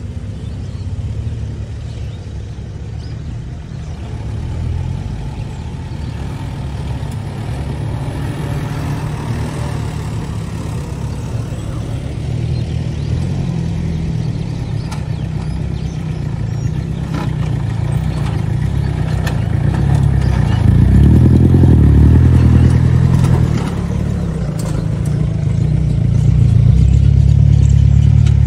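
4x4 SUV engines running as the vehicles drive slowly one after another through a muddy dirt track, the sound growing louder as they come close. It is loudest about twenty seconds in and again near the end, when a Toyota Land Cruiser Prado J120 passes close by.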